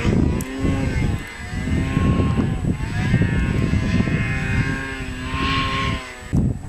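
Snowmobile engine revving, its pitch rising and falling repeatedly as it works through deep powder, with a brief dip in level near the end.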